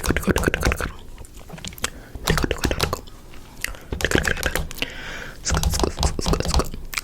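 Rapid, irregular clicks and crunches close to the microphone, in clusters with short pauses between them.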